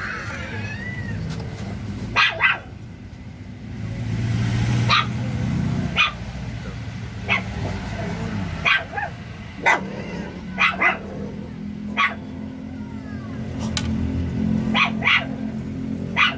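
A dog barking, about a dozen short barks spaced irregularly, some in quick pairs, over a steady low hum.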